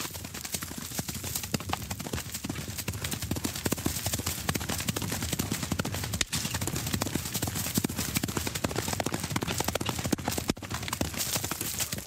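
A horse galloping through grass: a fast, uneven run of muffled hoofbeats that grows louder after the first few seconds and eases a little near the end.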